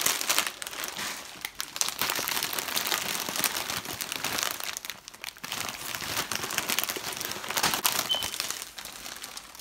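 Snack chip bags crinkling and rustling as they are handled: a dense run of crackles that keeps going, fading near the end.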